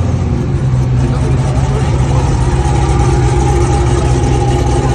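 Hennessy Venom F5's twin-turbo V8 idling steadily.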